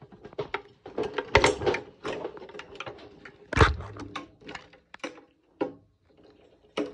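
Rustling and clattering from handling the strawman animatronic's fabric costume and metal frame poles: a busy run of small knocks and scrapes, with two louder knocks about a second and a half and three and a half seconds in.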